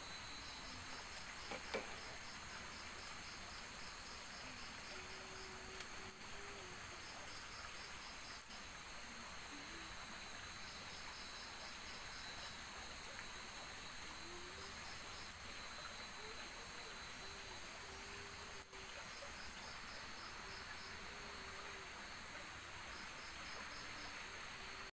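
Night-time chorus of crickets and other insects, a steady high trilling with repeated pulsed chirps over it. A few faint short low calls and a few isolated pops, the pops plausibly from the small wood campfire, come through now and then.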